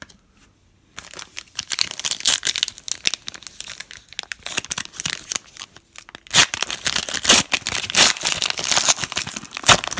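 A foil trading-card pack being torn open by hand, the wrapper crinkling and crackling. It starts about a second in and gets louder in the second half.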